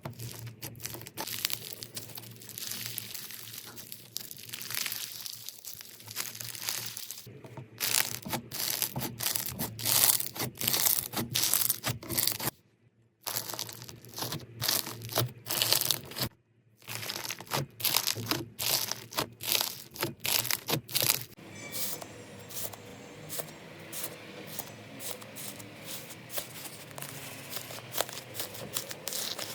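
Slime being squeezed and pressed, giving dense crackling and popping clicks. Twice it cuts out briefly, and it goes softer after about two-thirds of the way through.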